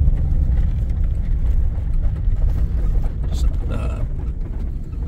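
Pickup truck driving slowly on a gravel farm lane, heard from inside the cab: a steady low engine and road rumble that eases slightly toward the end as it slows.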